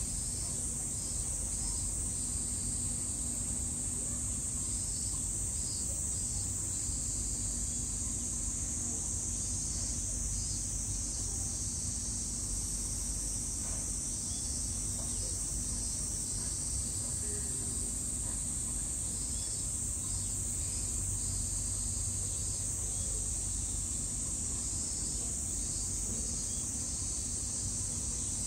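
Cicadas calling in chorus: a steady, high, sizzling hiss, with a second pulsing insect call coming and going in short spells every few seconds.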